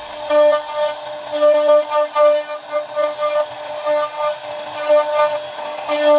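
CNC router spindle whining at one steady pitch as its cutter carves wood, the tone swelling and fading as the cut loads and unloads; a short hiss near the end.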